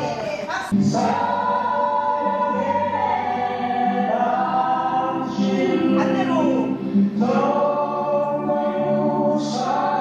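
Music with a choir singing long, held notes.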